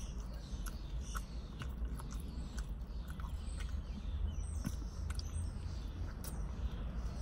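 Close-up eating sounds of a soft taco being chewed: small wet mouth clicks and lip smacks, scattered irregularly over a steady low hum.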